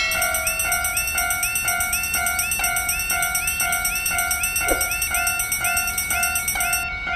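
Railroad crossing warning bell ringing in a steady repeating pattern, about two strokes a second, with a high ringing layer over it that cuts off near the end.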